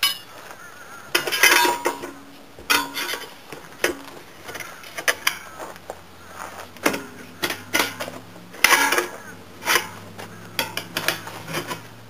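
Steel tire irons clanking and scraping against each other and against an aluminium semi-truck wheel as the tire bead is worked, in a string of irregular metallic clanks with short ringing. A low steady hum joins about seven seconds in.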